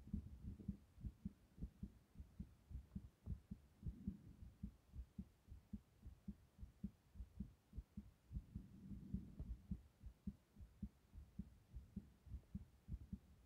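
Human heartbeat heard as low, muffled thumps a few times a second through the chest the phone rests on. The uploader calls the heartbeat irregular.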